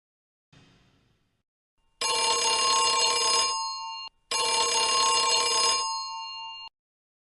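Telephone ringing twice, each ring about two seconds long with a short gap between, a dense ringing sound with many steady overtones that trail off at the end of each ring.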